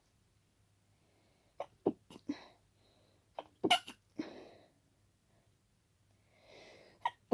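A person's stifled sneezes, set off by dust and pollen. There is a quick run of four short, sharp ones about a second and a half in, then two more near four seconds, the second of which is the loudest, with breathing after. A breath in near the end leads into another sharp burst.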